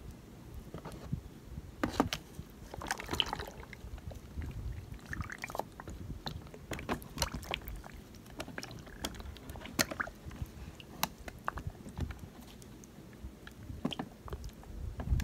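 Wet cloth rubbing and wiping the paint film on a hydro-dipped plastic Nerf gun over a tub of water, with small splashes and scattered clicks of plastic.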